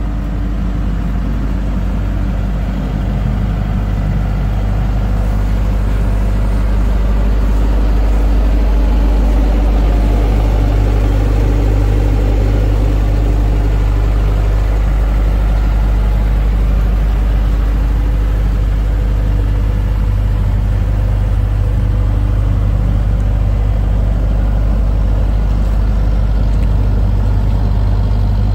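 Isuzu IP25 25 kVA silent-canopy generator set running steadily, its JE493DBE in-line four-cylinder diesel engine giving a deep, even drone. It grows a little louder over the first several seconds, then holds steady.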